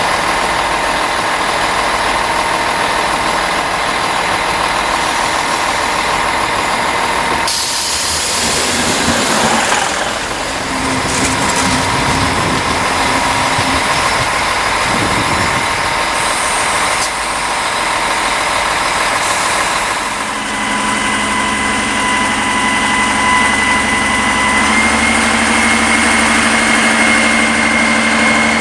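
Diesel railcar pulling into a station and stopping, its engine running with a steady whine, and a sudden rush of noise about a quarter of the way in as it draws level. In the last third the engine settles into a steady hum with a higher whine.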